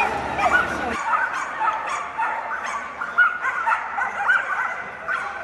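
Many dogs barking and yipping over one another in quick, high, overlapping calls: flyball dogs worked up while held at the start of their lanes.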